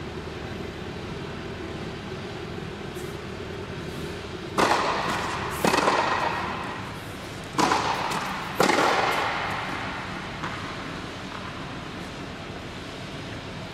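Tennis ball struck by rackets and bouncing during a rally: four sharp hits in two pairs, a second apart within each pair, each ringing out with a long echo in a large indoor tennis hall, over a steady low hum.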